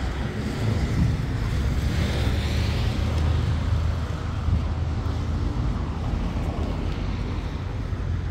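Wind buffeting a phone microphone, a steady low rumble, with faint street traffic underneath.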